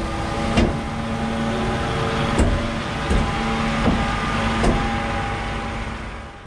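A DAF XF truck's diesel engine running steadily, with a light knock about every three quarters of a second. The sound fades out near the end.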